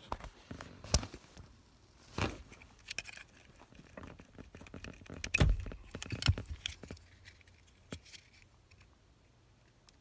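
Irregular handling noise: scattered clicks, knocks and rustles as the phone is set down and a plastic wiring connector is fitted onto an electronic flasher relay under a car's dashboard. It quietens over the last two seconds.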